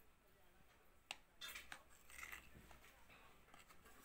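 Faint spoon scraping against a plastic mixing bowl as flour is stirred into cake batter, with a small click about a second in.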